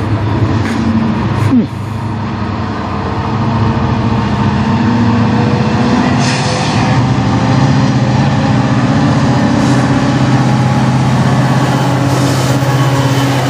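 Diesel-electric freight locomotives running past at the head of a manifest train, a loud, steady engine drone, with a short hiss about six seconds in.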